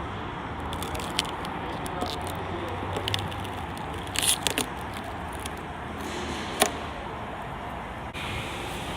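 Work sounds of vinyl decals being applied to a car body: scattered sharp clicks and taps, with a short scraping or rustling burst about four seconds in and a sharp click a couple of seconds later, over steady background noise.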